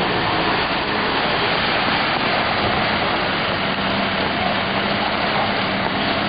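Heavy rain falling steadily on a flooded street, with a van's engine running low as it creeps through the floodwater; its hum comes in about halfway through.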